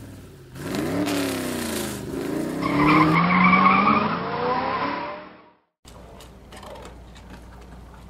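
Race-car sound effect: an engine revving up and down with tires squealing, cutting off abruptly about five and a half seconds in. After that, quieter room sound with light scattered clicks.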